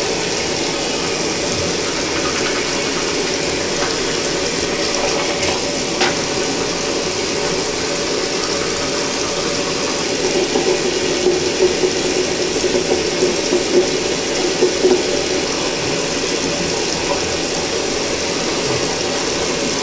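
Bathroom sink tap running steadily, with uneven splashing about halfway through.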